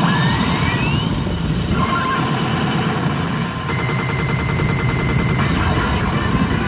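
Electronic effect sounds from a P Godzilla vs Evangelion pachinko machine: a loud, dense rapid crackle like gunfire, with a tone gliding upward in the first second and steady high tones sounding over it later.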